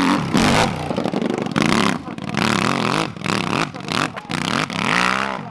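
Off-road motorcycle engine revving hard and unevenly while climbing a steep dirt slope, the revs repeatedly surging and dropping as the rear wheel spins and bites.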